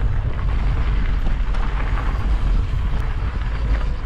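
Wind buffeting the microphone of a camera on a moving mountain bike: a loud, steady low rumble.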